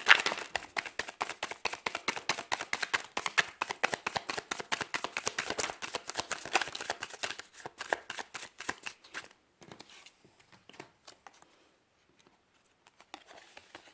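A deck of oracle picture cards being shuffled by hand: a rapid run of card clicks and slaps for about nine seconds, which then stops, leaving only a few faint ticks.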